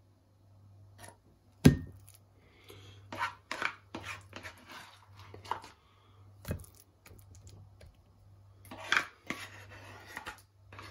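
Metal serving utensil scraping and knocking against a plate and pot while mashed potato is dished up: a sharp clink a couple of seconds in, then a run of short scrapes and knocks.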